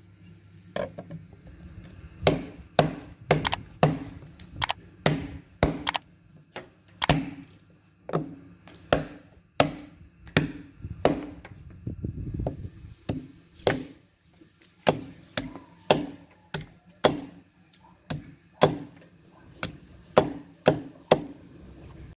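Large restored hunting knife chopping into wood: a long run of sharp chops, roughly one to two a second, with the blade striking the wooden table beneath.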